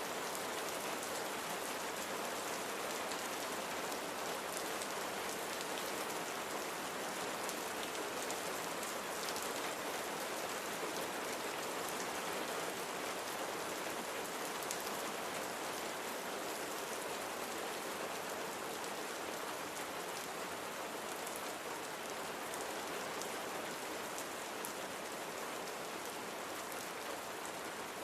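Steady rain falling and pattering on a surface, an even hiss with scattered faint drop ticks.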